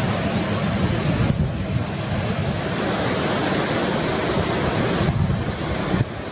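Ocean surf breaking and washing, a steady rush of noise with wind buffeting the microphone.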